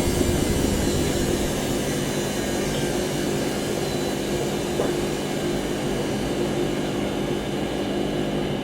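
Washing machine in its spin cycle, the drum spinning fast with a steady hum and whirring noise, and one small click a little past halfway.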